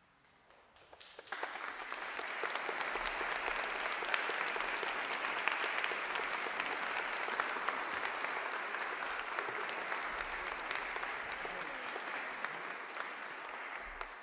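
An audience applauding, starting about a second in after a moment of quiet and holding steady, then dropping away at the very end.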